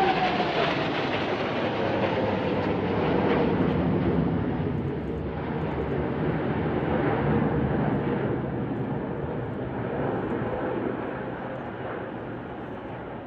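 Formation of Aermacchi MB-339 jet trainers flying past: loud jet engine noise with a whine that drops in pitch as they pass, then holds steady while the noise slowly fades.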